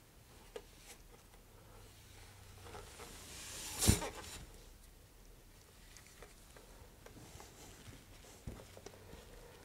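Quiet handling noises from gloved hands working on a fiberglass rocket tube: scattered soft rustles and small clicks, with one brief, much louder brush-and-knock about four seconds in.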